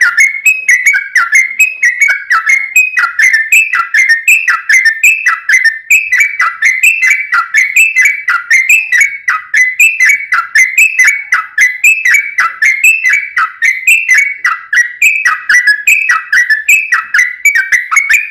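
Yellow-vented bulbul (trucuk) singing a fast, unbroken string of whistled notes, each a quick downward slur, several a second with a crisp clicky edge and no pauses between phrases.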